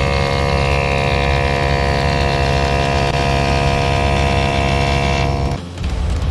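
Onboard air compressor mounted in a Jeep's engine bay running steadily: a constant motor hum with a high whine on top. It stops abruptly near the end.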